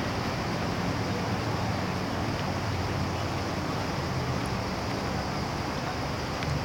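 Steady low rumble of distant road traffic, an even background hum with no distinct events.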